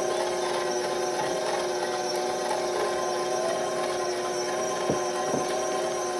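Electric stand mixer running steadily at low speed (about speed 2), its beater turning through powdered sugar in a stainless steel bowl: a steady motor hum, with two light knocks about five seconds in.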